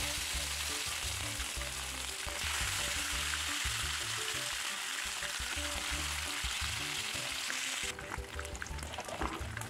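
Pieces of pindang tongkol (mackerel tuna) frying in hot oil in a pan: a steady sizzle that grows a little stronger about two seconds in and thins out to scattered pops near the end. Soft background music plays underneath.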